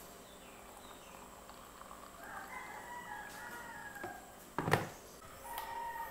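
Rooster crowing in the background: one long wavering crow starting about two seconds in, and a shorter call near the end. A single loud thump comes shortly after the crow ends.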